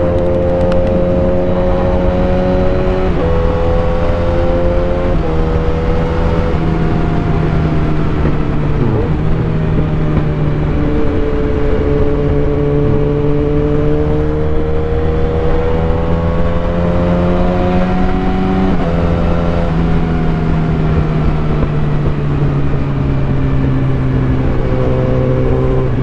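Sport motorcycle with a loud exhaust pulling through the gears in traffic. A few upshifts in the first several seconds each drop the pitch, then the engine runs steadily with the revs slowly rising and falling, and it shifts again about nineteen seconds in.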